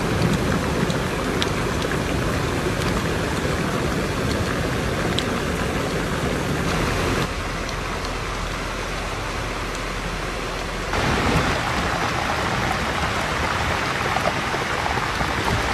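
Rain falling steadily, a dense hiss of noise with a few scattered drop ticks; the sound shifts abruptly twice, dropping in the highs about halfway through and brightening again a few seconds later.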